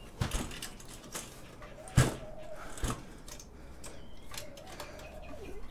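Scattered knocks and clicks of scrap circuit boards and their metal chassis being handled, about four in all, the loudest about two seconds in.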